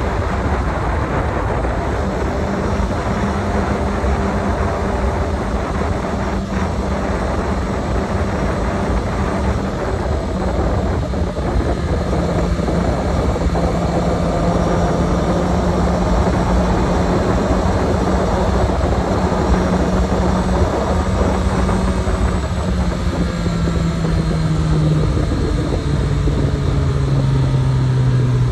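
Honda CB1000R inline-four engine running under heavy wind buffeting on the microphone at highway speed. The engine note drops in steps through the second half as the bike slows.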